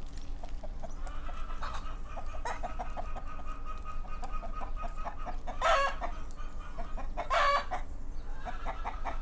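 Chickens clucking in a steady run of short calls, with three louder, longer calls at about six, seven and a half and nine and a half seconds in.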